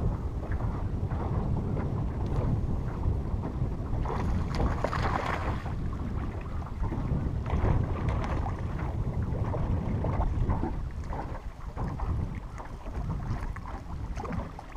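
Wind buffeting the microphone as a steady low rumble, with water lapping against the boat hull; a louder gust of hiss comes about four seconds in and lasts a couple of seconds.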